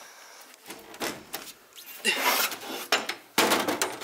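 Welded metal door panel scraping and knocking against the school bus's steel body as it is slid into its opening. There are several knocks and scrapes, with the loudest clank about three and a half seconds in.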